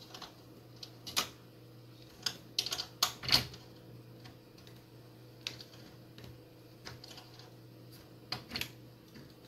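Screwdriver and small metal parts clicking and knocking on a receiver's metal chassis as screws are tightened: about a dozen irregular sharp clicks, the loudest around three seconds in. A faint steady low hum runs underneath.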